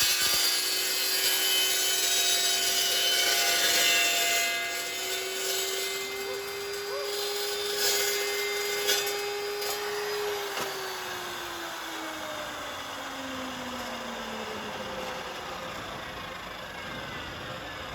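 Circular saw with a carbide-tipped (TCT) blade for steel, running with a steady whine and a high cutting hiss that fades over the first few seconds. About ten seconds in, the whine falls steadily in pitch as the blade coasts down.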